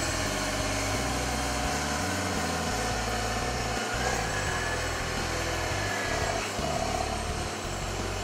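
Case IH STX330 four-wheel-drive tractor's diesel engine running steadily as the tractor drives slowly past.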